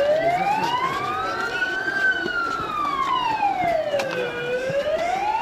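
Emergency vehicle siren in a slow wail, its pitch climbing to a high point about two seconds in, falling to a low point about four seconds in, then climbing again.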